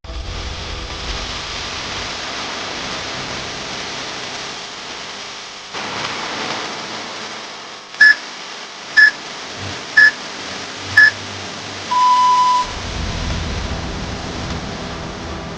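Electronic timer beeps: four short beeps a second apart, then one longer, lower beep, the countdown pattern of a workout interval timer signalling the start of the next interval. Under it runs a steady background hiss.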